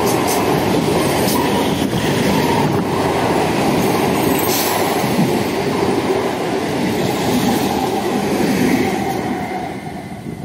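Passenger train coaches passing close by at speed: a loud, steady rush and rattle of wheels on the rails. It fades away near the end as the last coach clears.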